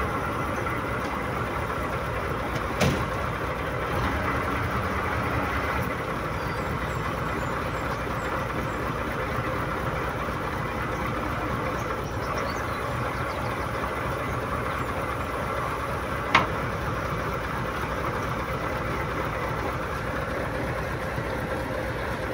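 Engine of a crane truck running steadily while it lifts a crate. A short knock comes about three seconds in and a sharper clack about sixteen seconds in.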